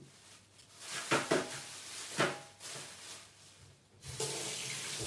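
Dishes clinking and knocking in a kitchen sink, then a tap running with a steady hiss for about the last second.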